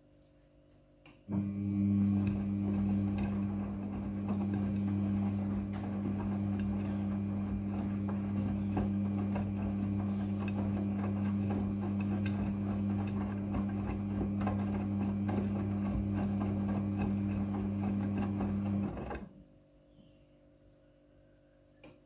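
Midea front-loading washing machine tumbling a load of wet towels. The drum motor starts about a second in and hums steadily over the churning of water and laundry, then stops abruptly a few seconds before the end.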